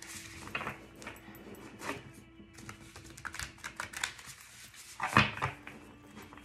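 A deck of tarot cards being shuffled by hand: a run of quick card flicks and taps, with one louder slap about five seconds in, over background music.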